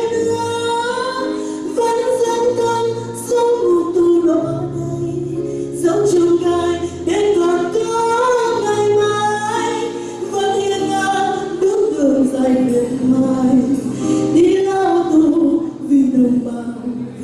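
A woman singing a Vietnamese song into a microphone, backed by a live band with bass guitar and drums.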